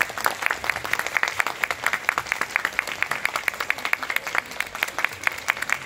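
Concert audience applauding, with one pair of hands clapping close by at about six claps a second.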